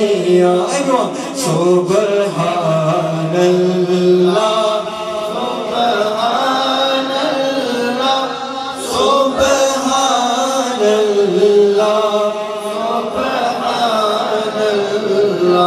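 Male voices chanting a devotional nasheed in long, held, wavering notes. The sound carries on at full strength while the lead reciter has lowered his microphone, so the gathering is singing along.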